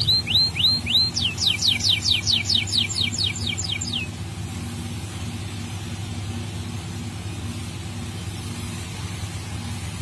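Domestic canary singing: three quick hooked whistles, then a fast trill of downward-sweeping notes that stops about four seconds in. A steady low rumble runs underneath and is all that is left after the song.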